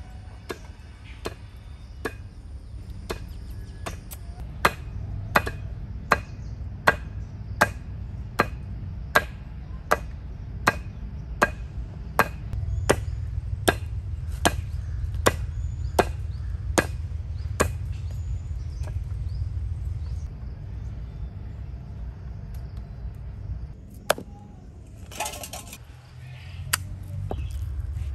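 Wooden mallet pounding raw chicken breast on a stone slab, a steady beat of dull strikes about every three-quarters of a second, lighter for the first few seconds. The strikes stop after about eighteen seconds, leaving only a few scattered knocks and a brief rustle of handling near the end.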